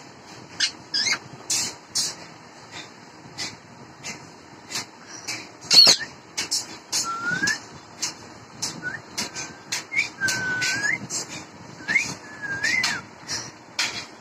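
Rose-ringed parakeet whistling: a string of short rising and wavering whistles in the second half, among many short sharp clicks or chirps throughout. There is one loud, shrill call about six seconds in.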